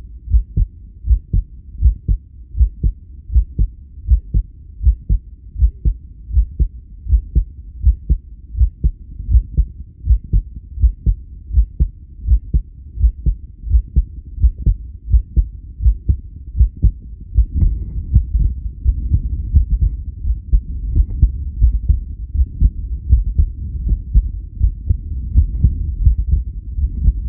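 A human heartbeat picked up at the chest, with steady, evenly paired lub-dub beats. About two thirds of the way in, a low rushing noise rises underneath the beats.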